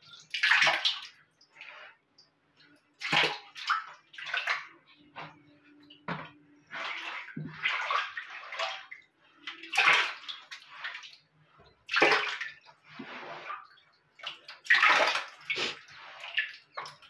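Water swishing and splashing as a wet cloth is scrubbed over the floor of a plastic water tank and squeezed out over a bucket. The strokes are uneven and come a second or two apart.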